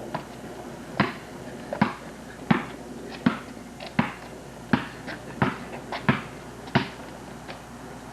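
A basketball being dribbled, about nine sharp bounces at a steady pace of roughly one every 0.7 s, with a few fainter knocks between them.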